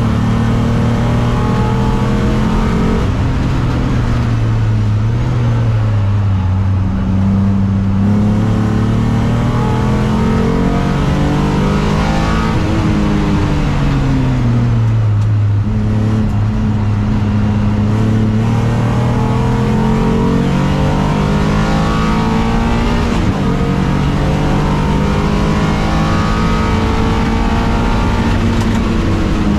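Alfa Romeo 156 race car's 3.2-litre V6 engine heard from inside the cabin under racing load, its note rising and falling with throttle and gear changes. About halfway through it drops away and then climbs again, as when slowing for a corner and accelerating out.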